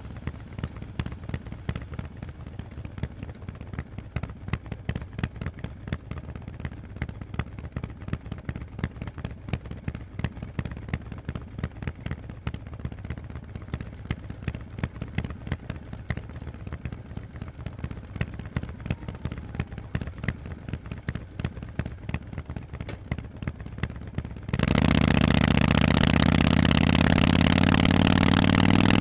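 Harley-Davidson Forty-Eight's air-cooled V-twin through loud Vance & Hines exhausts, running at low revs with a quick, even pulsing beat. About 24 seconds in the throttle opens and the exhaust gets much louder and holds steady.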